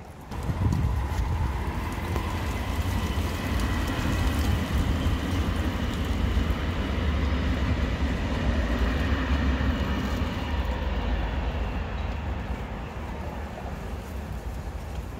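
KTX high-speed train passing on the line: a steady rumble of wheels on rail that sets in about half a second in, with a faint high whine over it, easing off slightly near the end.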